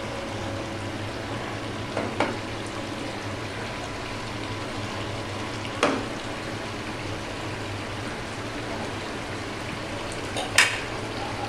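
Chicken and vegetables cooking in sauce in a wok, giving a steady sizzle and bubble. A wooden spoon knocks against the pan a few times, the loudest knock near the end.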